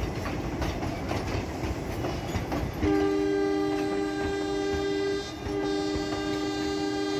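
Train rolling slowly over jointed track with scattered wheel clicks, then about three seconds in a train horn sounds a steady two-note chord, held with one short break.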